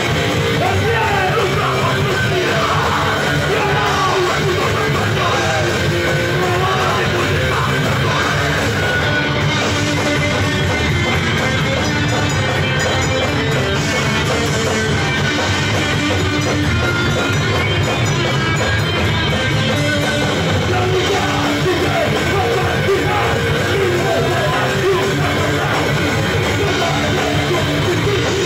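A live rock band playing loudly, with a vocalist singing and shouting over the band.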